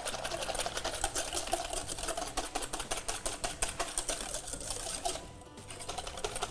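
Wire whisk beating egg yolk and sugar in a stainless steel bowl, clattering against the metal in rapid, even strokes, with a brief pause a little past five seconds.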